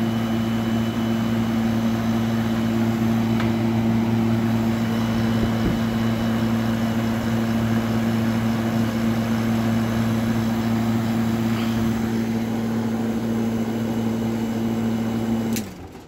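Zeks industrial refrigerated air dryer's compressor running with a steady hum. It is working normally on a replacement start capacitor and a higher-wattage bleeder resistor. It is switched off near the end and the hum stops abruptly.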